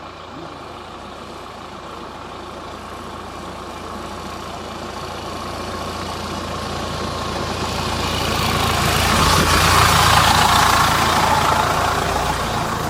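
Off-road vehicle engine running under load on a rough track, growing steadily louder to a peak about ten seconds in, then easing off.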